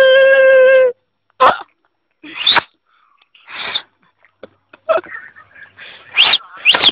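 A person's voice making wordless noises: a held 'aaa' note about a second long, then a string of short yelps and exclamations, two of them rising in pitch near the end.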